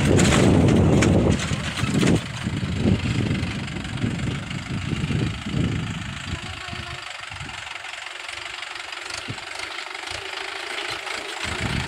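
Mahindra 415 tractor's diesel engine running as the tractor drives across a field. The engine is loudest in the first second or two, then fades and thins out from about six seconds in.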